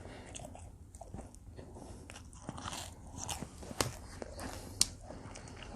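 Close-miked chewing of combination pizza: soft crackles and crunches of the crust between the teeth, with two sharp mouth clicks about a second apart near the middle.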